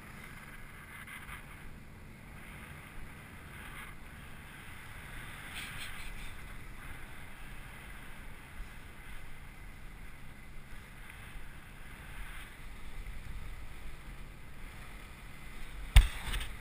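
Wind rushing and buffeting over a GoPro's microphone while hanging under a parasail. Near the end there is one sharp knock, the loudest sound, as the camera is knocked while it is turned.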